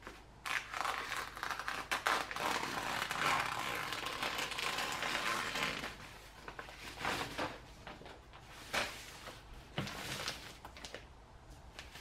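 Scissors cutting through a woven plastic feed bag, the bag rustling and crinkling as it is handled and cut. The sound is continuous for the first half, then breaks into scattered snips and rustles.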